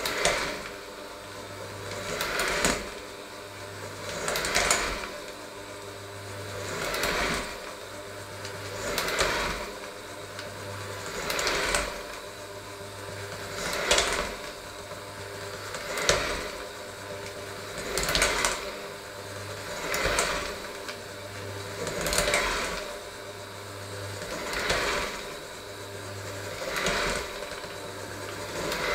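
Electric hand mixer running steadily, its beaters working a crumbly dough in a stainless steel bowl. The sound swells louder about every two seconds as the mixer is moved around the bowl.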